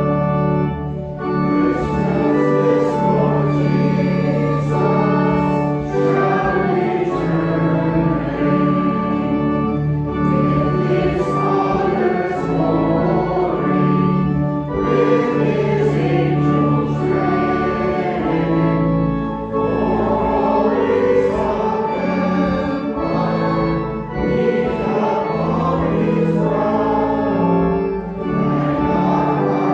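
A church choir singing a hymn with organ accompaniment, with long held chords under the voices.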